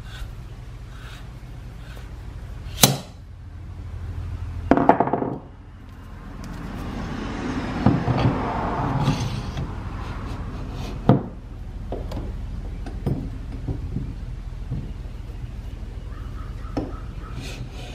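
Metal hand tools and cast-iron governor parts handled on a wooden workbench. An adjustable hand reamer in its tap wrench is set down with a sharp metallic clank about three seconds in, followed by scraping and rubbing and a few lighter knocks, over a steady low hum.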